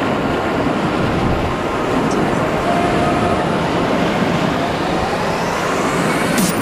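Loud, steady rushing of whitewater from a big standing wave on a flooded river, heard close to the water as a kayak surfs on the wave.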